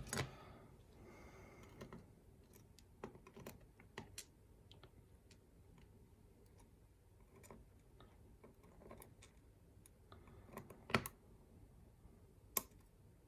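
Faint, scattered clicks and taps of small metal lock parts (pins, springs, tools) being handled on a work surface, with one louder click about 11 seconds in.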